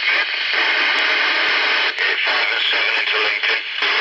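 A weak station coming through a Uniden 300 CB radio's speaker: a distant operator's voice mixed with hiss, with short gaps, received readable but weak (a 4 and 3 signal report).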